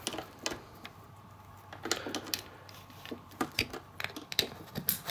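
Scattered light clicks and taps of hand handling: a coiled phone cable and a small plastic inverter remote switch panel being handled while the cable's plug is fitted into the back of the switch.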